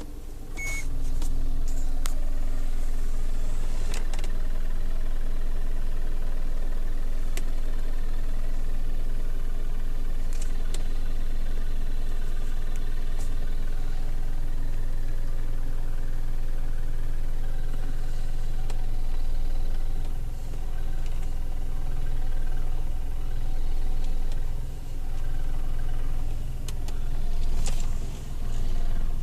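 2008 Toyota RAV4 engine running steadily, with the knocking/rattling noise the owner is recording it for. The sound comes up under a second in, and in the last third it swells and dips again and again.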